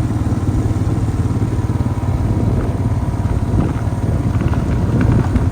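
A vehicle engine running steadily with a dense low rumble, heard from on board as it drives along.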